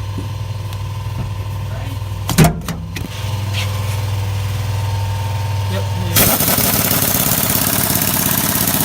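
A steady low engine hum with a single loud knock about two and a half seconds in; about six seconds in, a loud, even rushing noise cuts in over it.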